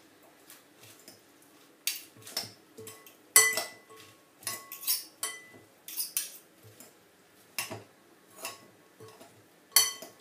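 Salad utensils clinking and scraping against a glass salad bowl as a dressed salad is tossed. The clinks come at irregular intervals, some with a short glassy ring, and the loudest fall about three seconds in and near the end.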